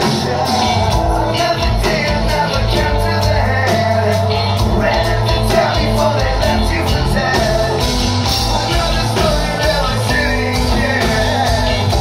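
A live rock band playing loud through a concert PA: drums, bass guitar, electric guitar and a singer's voice, heard from the crowd.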